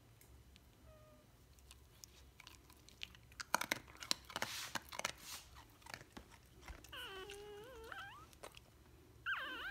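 Soft wet clicking and smacking from the dogs' mouths for a couple of seconds, then a newborn Sproodle puppy's thin, wavering whine of about a second. A second, louder whine starts just before the end.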